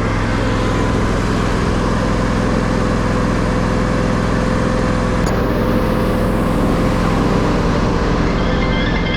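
An engine running steadily at constant speed, a continuous low rumble with a steady hum over it.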